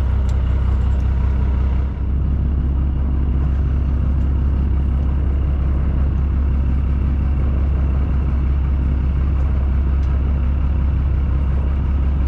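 Fishing boat's engine running steadily: a constant low drone with a brief dip about two seconds in.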